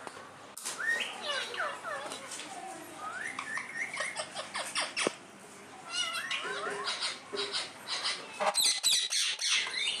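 Rose-ringed parakeets chattering and squawking, a quick run of rising and falling whistled calls, with a louder burst of sharp, harsh calls near the end.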